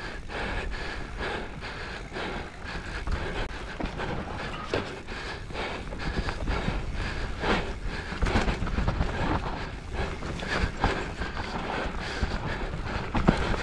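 Mountain bike descending an enduro trail at speed: tyres rolling over dirt with constant irregular knocks and rattles from the bike, over a steady wind rumble on the microphone.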